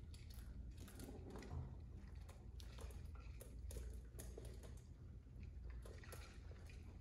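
Pigeons pecking seed from plastic dishes: a fast, irregular run of faint clicks and taps, with wing flaps as the birds jostle over the food.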